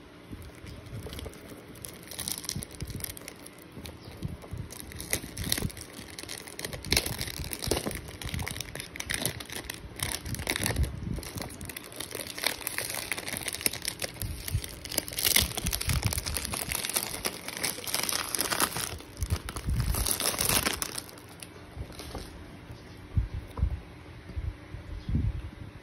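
Clear cellophane overwrap being peeled and torn off a cardboard perfume box: a long run of crinkling and crackling that gets loudest a little past the middle. Near the end the crinkling stops, and a few light knocks come from the box being handled.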